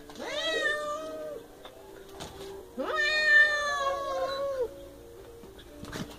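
Cat giving two long, wavering yowls at a dog close in front of it, the second about two seconds long: a defensive warning cry.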